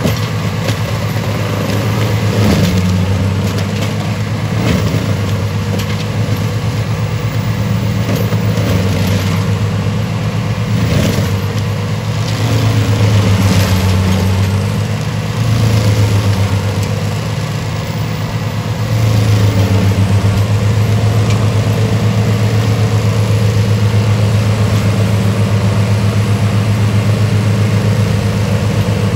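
Deutz-Fahr tractor engine working under load to drive an FAE UMM/DT forestry mulcher as its rotor shreds felled tree branches. The engine hum runs steadily under irregular sharp cracks and crunches through the first half, then settles into a louder, even grind from about two-thirds of the way in.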